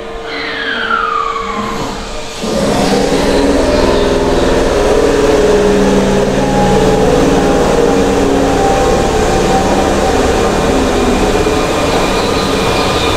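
Keihan electric train in an underground station: a falling whine over the first two seconds, then, about two and a half seconds in, a sudden loud steady drone with several held tones as the train's air compressor starts up, echoing in the underground station.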